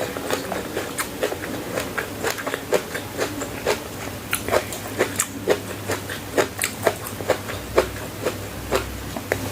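A person chewing food with the mouth close to the microphone: a steady run of short, sharp clicks and smacks, about two to three a second.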